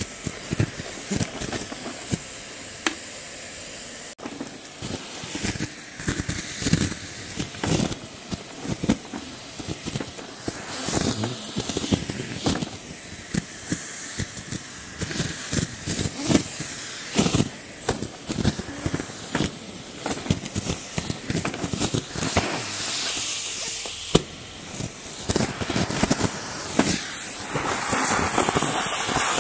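Numatic Henry 160 vacuum cleaner running with a steady high hiss while sucking up leaves, which crackle and clatter in quick irregular clicks.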